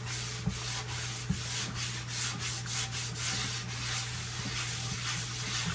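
Scouring pad scrubbing a wet cast iron skillet in quick, rhythmic back-and-forth strokes, scrubbing flash rust off the freshly de-rusted pan.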